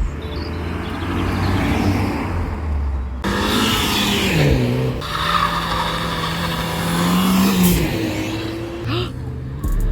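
Supercar engines revving hard and pulling away, with tyres squealing and the engine pitch rising and falling. The sound changes abruptly a few times, about three and five seconds in and again near the end.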